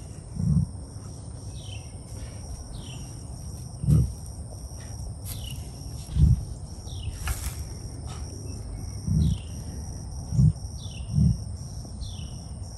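Male emu giving short, deep grunts, about six at irregular intervals. This is the grunting a male emu makes in mating season, which had first seemed like something caught in his craw. Behind it run a steady high drone and repeated short falling chirps.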